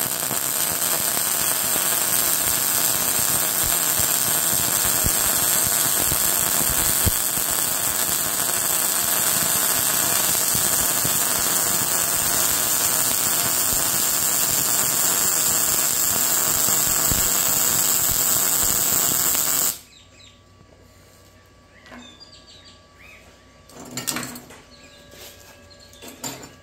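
Gas MIG welding arc from the Arccaptain MIG200 at 170 amps with 0.9 mm wire and mixed gas, making a steady, loud crackle for about twenty seconds while a push weld is laid on 3/16-inch steel. There is a lot of popping early in the weld while the wire speed is not yet right. The arc cuts off suddenly, and a few light knocks follow.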